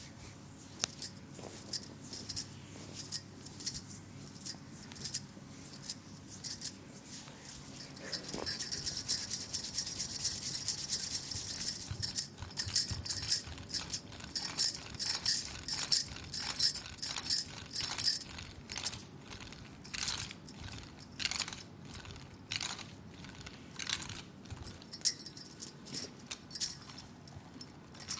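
Hands rubbing and working an oiled leg: a string of quick, sharp clicks from the oiled skin. About eight seconds in they thicken into a steady rubbing hiss, then break up again into a faster run of louder clicks.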